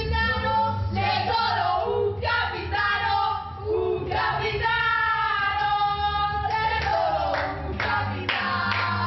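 Group of women singing together over music, with long held notes, and hand clapping joining in about seven seconds in.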